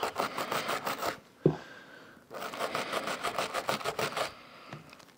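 Rapid back-and-forth scrubbing strokes on a small AR-15 bolt carrier group part freshly wet with gun cleaner, in two runs of about six to eight strokes a second with a pause between. A short thump comes in the pause, about a second and a half in.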